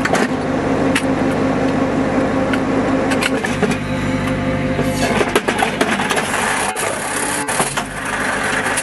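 A 2S7M Malka self-propelled gun's diesel engine running steadily, with metallic clanks, knocks and scraping from the shell-loading gear. The rattling gets denser in the second half.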